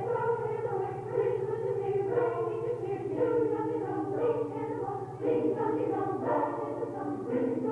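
A choir singing a Christmas carol in sustained, held notes, with a low steady hum underneath.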